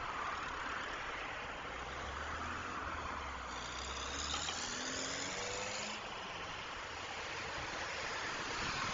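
Road traffic on a city highway: steady tyre noise of passing cars. A heavier engine drones for a few seconds around the middle while a passing vehicle's whine glides in pitch.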